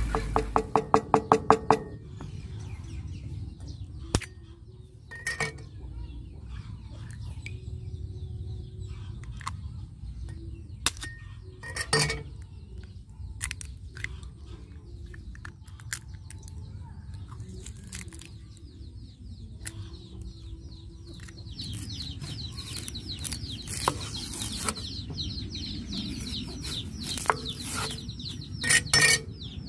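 Hens clucking and birds chirping in the background, busiest in the last third. Over them come a quick run of about ten clicks at the start and scattered sharp knocks of eggs being cracked into a bowl.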